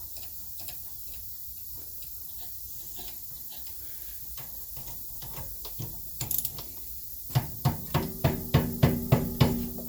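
Hand ratchet wrench clicking while bolts are run in and tightened. A few scattered clicks come first, then from about seven seconds in a fast, even run of louder clicks at about five a second.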